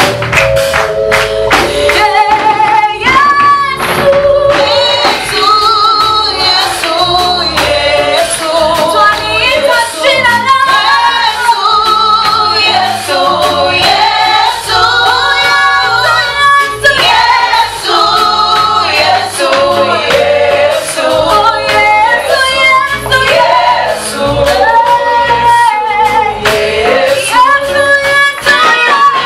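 A vocal group singing a Swahili gospel hymn in harmony, with held notes over a musical backing.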